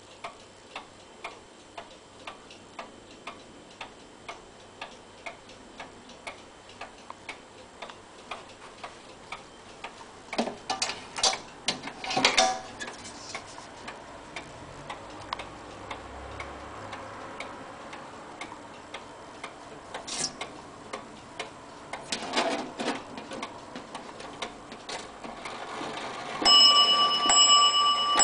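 Pendulum wall clock ticking steadily, with a few louder clicks and knocks partway through. Near the end it starts to strike the hour, each blow ringing on.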